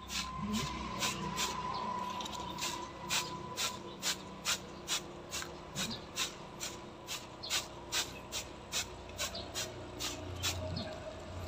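Hand trigger spray bottle pumped over and over, about two short spray hisses a second. It is misting a homemade pesticide of boiled shallot and garlic skins onto broccoli plants.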